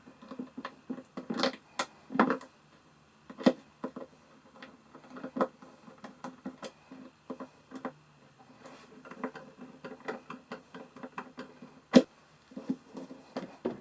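Handle hardware on a wooden machinist's tool chest being fitted: irregular clicks and knocks of small metal parts against the box, a few of them sharper, as the handle and its pins go in.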